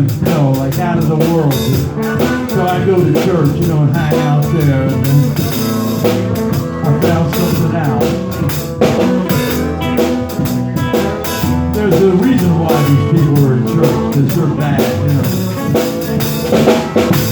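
Live blues band playing an instrumental passage with guitar and drums under a lead melody that bends and slides in pitch.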